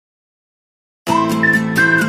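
Silence for about a second, then background music starts: a gliding lead melody over sustained chords with a light, steady beat.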